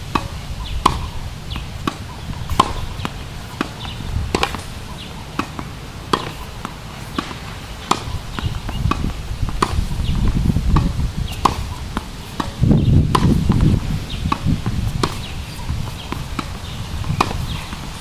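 A tennis rally: sharp pops of a racket's strings striking the ball, alternating with the ball bouncing on a hard court, one every half second to a second. A low rumble swells and fades in the middle stretch.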